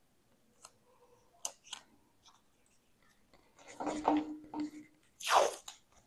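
Blue painter's tape being pulled off the roll: a few light handling clicks, then a crackling pull a little before four seconds in, and a quick, louder rip of a strip of tape about five seconds in.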